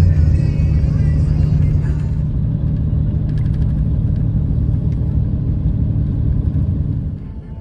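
Bus moving along a highway, heard from inside the cabin: a steady low engine and road rumble that eases off just before the end.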